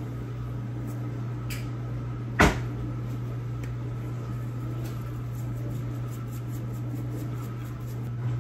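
A plastic seasoning bottle being opened: one sharp click of its cap about two and a half seconds in, with a fainter click a second before, over a steady low hum.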